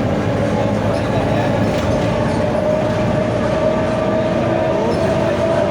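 Mercedes-Benz OF 1721 bus differential whining: a steady high tone that slowly rises in pitch as the bus gains speed. Under it run the bus's 4.8-litre four-cylinder OM924LA diesel and the rolling noise.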